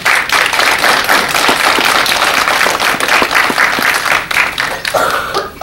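Audience applauding. It starts abruptly and stops sharply near the end.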